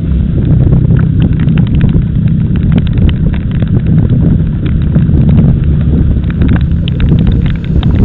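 Car running on the road, heard as a loud steady low engine and road drone, with many short clicks and taps over it.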